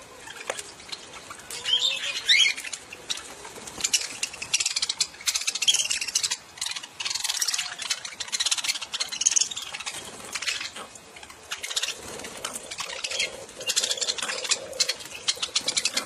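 A flock of budgerigars (parakeets) chattering and chirping all together in a busy, high twitter, with wings fluttering as they crowd onto a hand to feed.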